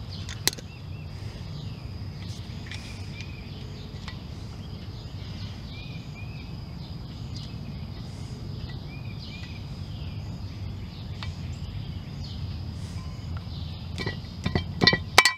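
Steady low background rumble, then near the end a quick run of sharp metal clicks and scrapes: a screwdriver prying the grease dust seal out of a Ford F-150 front rotor hub.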